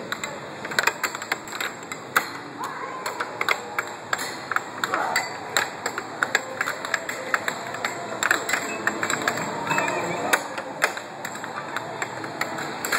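Air hockey puck cracking against the mallets and the table rails in quick, irregular hits during a fast rally, over the background chatter of a busy arcade.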